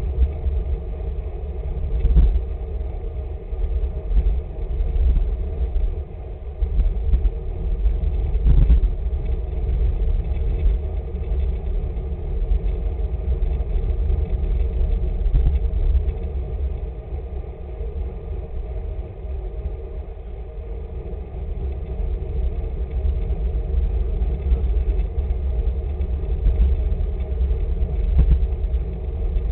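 Wind buffeting the microphone of a camera riding along on a road bike, a heavy, uneven rumble with gusts now and then, over steady tyre and road noise.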